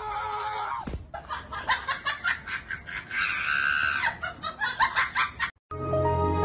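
A single knock about a second in, then rapid high chicken-like clucking cries, about three a second, with one longer drawn-out cry in the middle. Near the end it cuts off and music starts.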